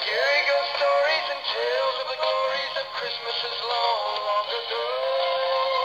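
Animated plush puppy Christmas stocking singing a song through its small built-in speaker: a recorded voice with music, thin and tinny, with almost no bass.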